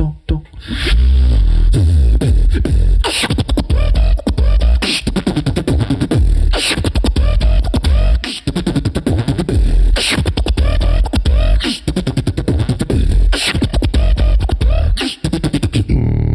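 Human beatboxing into a handheld microphone: deep kick-drum booms, snare-like hits and quick hi-hat clicks in a steady, dense rhythm, broken by a brief gap near the end.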